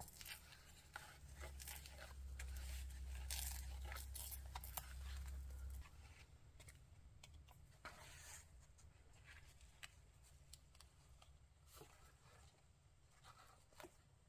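Paper tearing and rustling, faint, with small clicks and handling noises as a paper picture is torn and pressed flat onto a journal page. A low rumble runs under the first half and stops about six seconds in.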